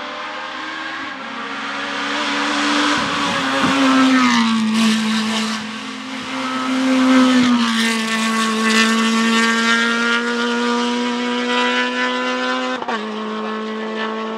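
Naturally aspirated Honda K20 inline-four of a Civic Type-R EP3 race car at high revs under load, driving past and away up the hill. Its note drops sharply in pitch several times at the gear changes, and it is loudest as the car goes by.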